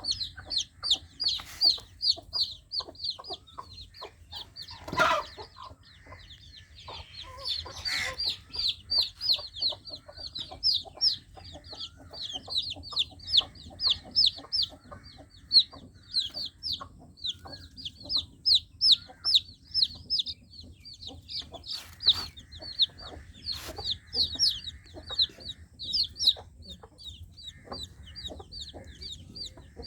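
Baby chicks peeping continuously: quick, high cheeps that each slide down in pitch, several a second. A few short, louder noises break in here and there.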